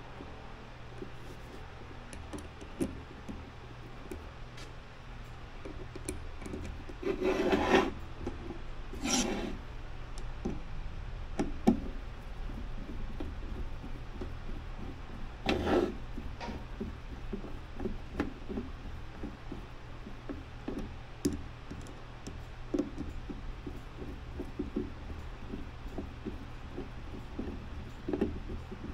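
Workshop handling noises from parts and hand tools: scattered small clicks and knocks, with three short rasping scrapes about seven, nine and sixteen seconds in, over a steady low hum.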